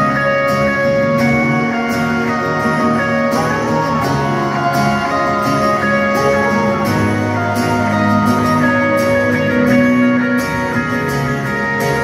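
Live rock band playing in an arena, heard from the crowd: electric guitar over a steady drum beat, with a hall echo.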